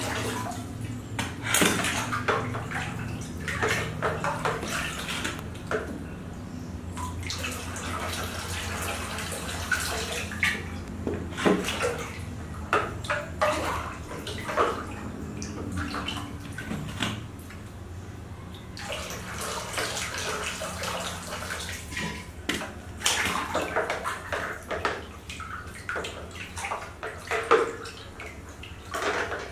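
Hands splashing and swishing water in a plastic basin, in irregular strokes, over a low steady hum.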